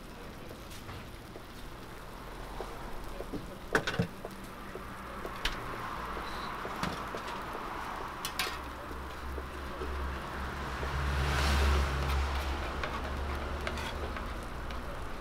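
Eggs and fried rice sizzling in oil on a flat-top steel griddle, a steady frying hiss, with a few sharp clicks of a spatula against the steel about four seconds in. The sizzle swells briefly about two thirds of the way through.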